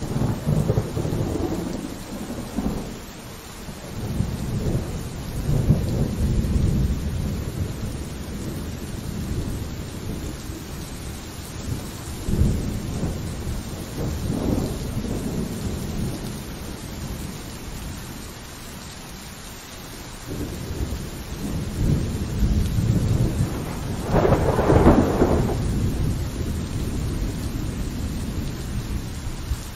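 Thunderstorm: steady rain with rolling thunder. Long low rumbles swell and fade at the start and about 4, 12 and 20 seconds in. The loudest, sharpest peal comes about 24 seconds in.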